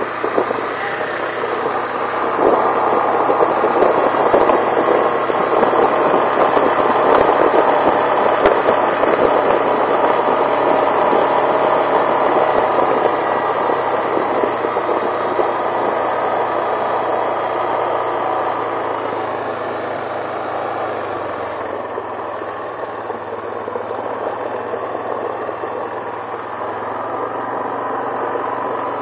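Yamaha Kodiak 450 ATV's single-cylinder engine running steadily under way, with tyre noise on a gravel road. The sound eases off after about twenty seconds as the quad slows.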